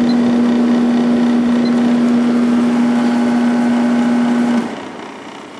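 1997 Sharp 8500 BTU window air conditioner running on high fan speed with the compressor on: a steady rush of air with a strong, even hum. It cuts off suddenly near the end, leaving only a quieter hiss.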